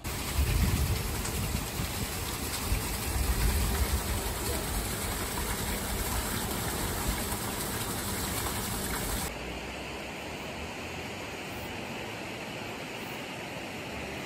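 Water pouring from a spout onto a small wooden water wheel and splashing into the channel below, loud and steady with low rumbling. About nine seconds in it gives way to the quieter, steady rush of a shallow river running over stones.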